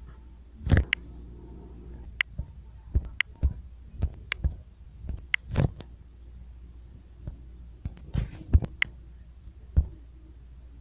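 Irregular sharp clicks and knocks, about fifteen spread unevenly, over a steady low hum.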